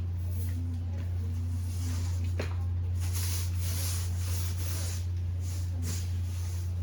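A steady low electrical hum, with intermittent rustling and a single sharp click or knock about two and a half seconds in, as items are handled during tidying.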